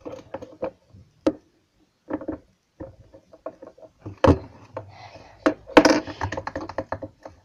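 Plastic handling noises: a crumpled plastic bottle being held and squeezed, and a thin stick tapping and scraping in a small plastic tub on a tabletop. Irregular clicks and knocks, with two louder knocks about four and six seconds in.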